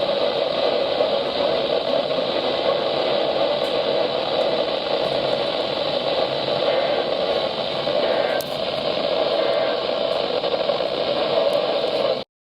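Weather radio receiver giving a steady hiss of static with no voice on the channel. The hiss cuts off abruptly just before the end.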